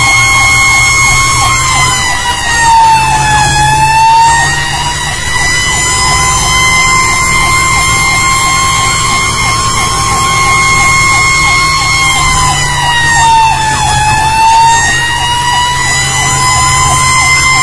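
A fire engine's siren heard from inside the cab as it drives to a fire, holding a steady high tone. The tone sags lower twice, about two seconds in and again about twelve seconds in, then climbs back up. Fast chirps run beneath it, over the low rumble of the truck's engine.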